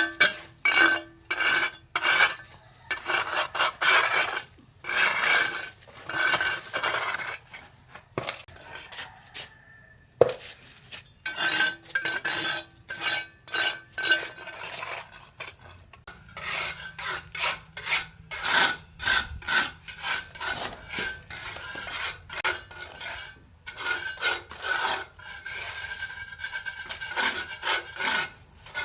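Repeated rough scraping strokes, irregular, about one to two a second, with faint metallic clinks.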